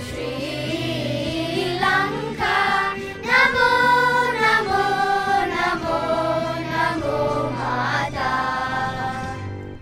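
Children's choir singing into microphones, with long held notes over a steady low accompaniment; the singing fades out near the end.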